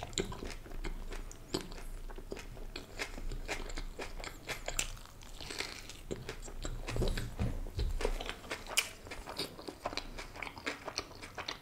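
A person biting into a soft tortilla wrap and chewing it with the mouth close to the microphone, a steady stream of many short mouth clicks.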